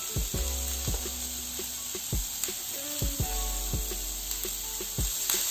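Chopped onion sizzling in hot oil in a non-stick frying pan, a steady hiss, with a few soft knocks scattered through it.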